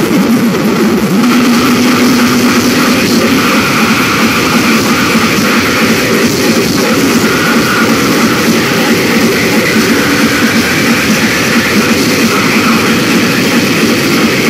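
Noise music: a loud, dense wall of distorted noise with a rumbling low end and no clear beat or melody. A low held tone sounds for about two seconds near the start.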